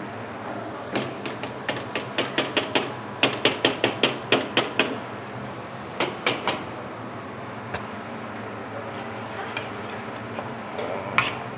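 Cooking utensil knocking against a pan while sambal is stirred and pieces of palm sugar are worked in: runs of sharp knocks, about three to four a second, from about a second in to about five seconds in, then a few more about six seconds in.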